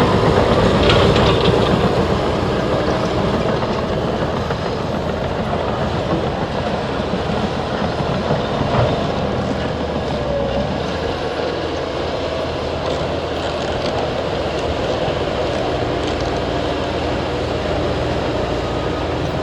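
Liebherr crawler bulldozers pushing earth, their diesel engines running and their steel tracks clanking, a little louder in the first couple of seconds.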